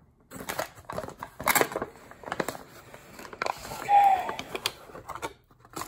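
Paper sandwich wrapper and bag crinkling and rustling in irregular bursts as a fast-food chicken sandwich is unwrapped, with a short squeaky note about four seconds in.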